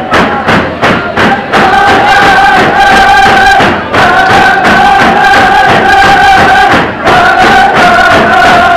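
Tlicho (Dogrib) drum-dance song: a group of male drummers singing in unison to a steady beat on hide hand drums, about three beats a second. The voices hold long notes in phrases of two to three seconds, breaking briefly between phrases.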